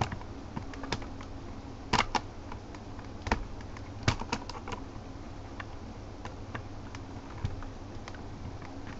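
Irregular small plastic clicks and taps as the parts of a Battle B-Daman toy are handled and a quick-loader piece is pushed and fitted into place, with a few sharper snaps about two and four seconds in.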